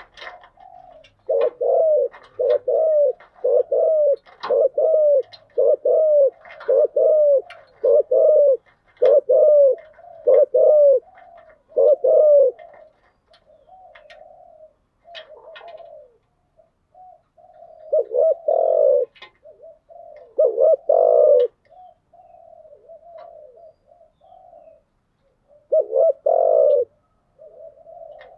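Spotted dove cooing. It opens with a fast run of about a dozen short, evenly spaced coos. Softer coos and pauses follow, then a few louder coo phrases.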